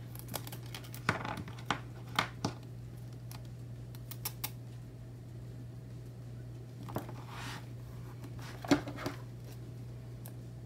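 Washi tape being pressed onto a paper planner page and trimmed with scissors: scattered light clicks and brief rubbing of paper and tape, with the sharpest click about nine seconds in, over a low steady hum.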